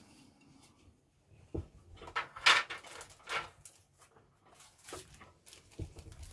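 Model-kit parts being handled and put aside: a knock about a second and a half in, then rustling and scraping, with scattered light taps and clicks.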